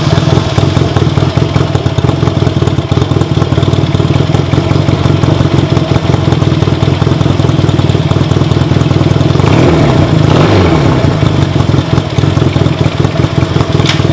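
Honda CA160's parallel-twin engine idling steadily just after starting, on its first run after its stuck clutch was replaced. The engine note dips and rises briefly about ten seconds in, and there is a sharp click near the end.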